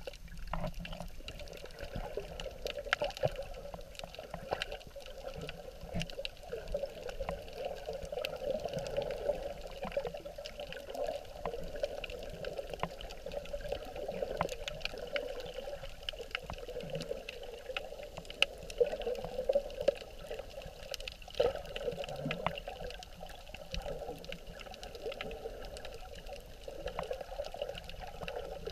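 Underwater sound of water moving around a camera carried by a swimming snorkeler: a steady, muffled rushing with many scattered short clicks.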